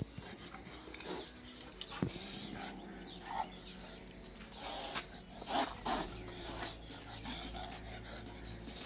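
A Doberman pinscher sniffing and panting at close range, in short, irregular rasping bursts.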